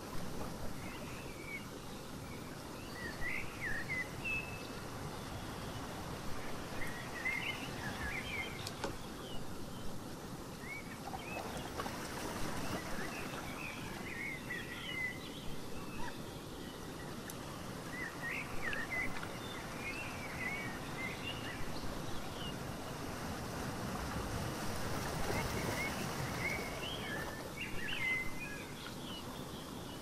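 Ocean waves washing in, swelling twice and easing back, under a steady wash of surf noise. Birds chirp over them throughout in short rising and falling calls.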